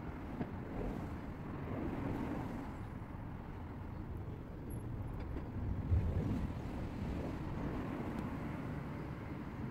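Steady low rumbling noise with a few faint ticks, played back at seven times speed: the outdoor sound around a mess tin cooking over an open burner flame.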